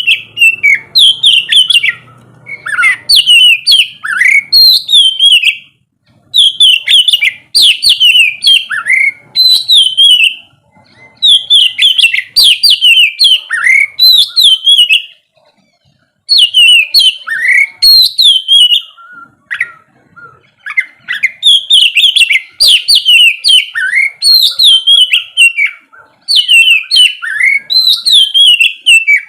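Oriental magpie-robin (kacer) singing loud, fast runs of varied whistles and chirps, in bouts of a few seconds with brief pauses between them.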